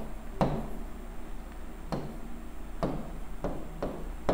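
Five or six sharp taps or knocks at irregular intervals, over a faint steady low hum.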